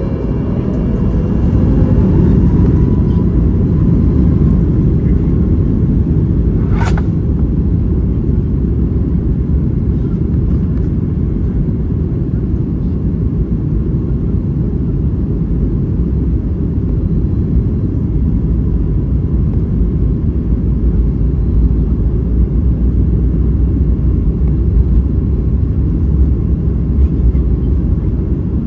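Cabin noise of a Boeing 737 MAX 8 with CFM LEAP-1B engines. The engine whine rises and the level climbs in the first two seconds, then a loud steady rumble follows, typical of the takeoff roll. A single sharp click sounds about seven seconds in.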